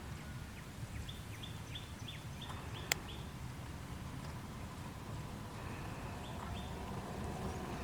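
A songbird giving a quick series of short, high, falling chirps, about three a second, then a few more chirps later, over a steady low rumble. A single sharp click comes near the middle.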